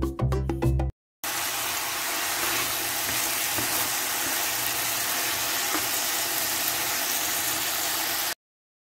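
Bite-size chicken pieces frying in hot oil in a nonstick pan, a steady sizzle lasting about seven seconds that cuts off suddenly near the end. A snatch of jingle music plays at the very start, before a short gap.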